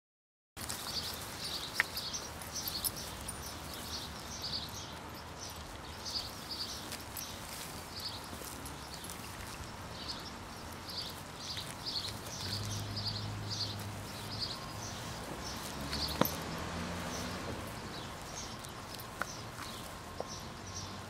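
A dog and puppy playing tug over a plush toy on grass, with a low growl twice a little past the middle and a few sharp knocks. Quick runs of high chirping repeat in the background throughout.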